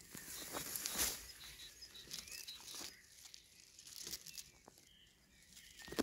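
Irregular rustling and brushing of leaves and handling noise as the phone is moved close through leafy bushes, loudest in the first second and dying down near the end, with a few faint bird chirps.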